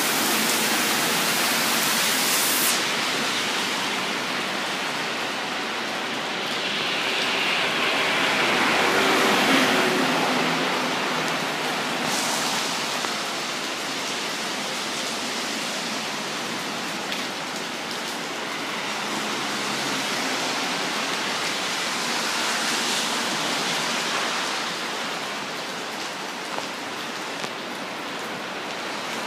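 Heavy rain pouring steadily onto pavement, puddles and plants, with traffic swishing by on the flooded road now and then; the loudest pass swells and fades about eight to ten seconds in.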